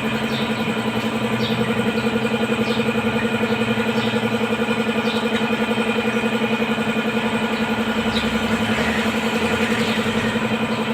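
A small engine running steadily at idle, an even hum with a fast regular pulse, with a few faint light clicks over it.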